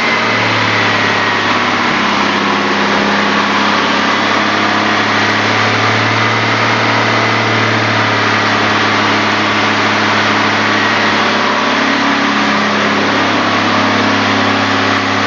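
Wood-gas-fuelled 4.1-litre Chevrolet straight-six engine running at a steady speed while it drives an alternator, with a thin high whine above the engine note. The speed is being held so the alternator puts out a steady 49.5 hertz.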